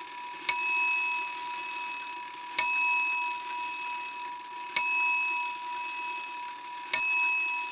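A small bell struck four times, about two seconds apart, each ring dying away over a steady high tone.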